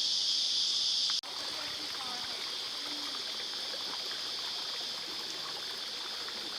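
Steady high-pitched drone of a rainforest insect chorus. It drops abruptly about a second in and then carries on slightly quieter, with a few faint bird calls.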